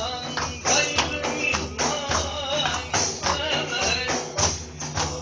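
Live music: a frame drum with jingles, like a tambourine, beats a steady rhythm with a low bass beneath it, and voices can be heard over it.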